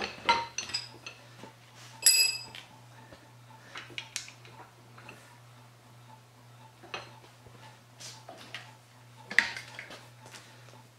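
Metal parts and hand tools clinking and knocking against a steel bench vise, irregular light taps with one ringing metal clang about two seconds in, over a faint steady low hum.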